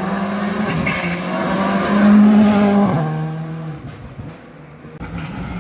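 Rally car engine at full throttle as the car comes up the road, loudest about two seconds in. The engine note drops in pitch about three seconds in and fades away as the car goes by. Another engine sound cuts in abruptly near the end.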